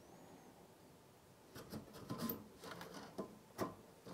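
Plug-in circuit cards of a Philips PM5534 pattern generator being slid in and out of their card cage. A faint run of short clicks and scrapes starts about a second and a half in.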